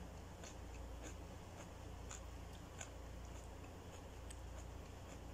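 Faint eating sounds: scattered soft clicks, a few a second, from a metal spoon scooping macaroni soup in a ceramic bowl and from chewing, over a low steady hum.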